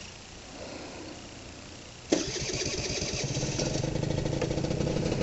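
Honda Elite SA-50 scooter's 49cc two-stroke engine started on the electric starter, catching suddenly about two seconds in and then running at a fast, even idle on its automatic choke (auto bystarter) as a cold start.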